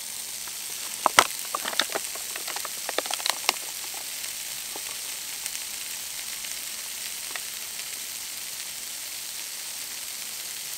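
Bacon bits frying in a small oiled non-stick pan: a steady sizzle, with a flurry of sharp crackles and pops in the first few seconds.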